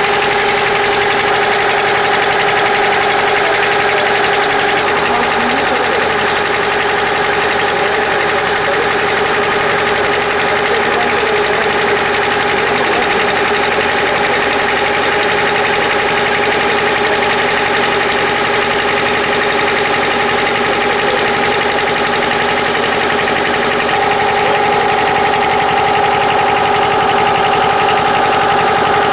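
Engine running steadily, with an unchanging hum.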